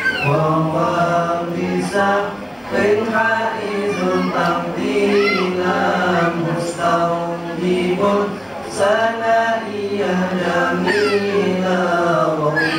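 A group of voices chanting memorised Arabic verse together in unison, unaccompanied, to a steady melodic tune.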